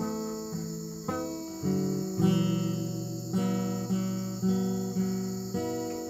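Background music: a guitar plucking notes about twice a second, each note ringing and fading, over a steady high-pitched hiss.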